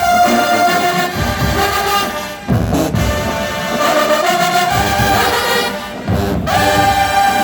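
Brass ensemble playing loud, held chords in swelling phrases, with low thumps under them.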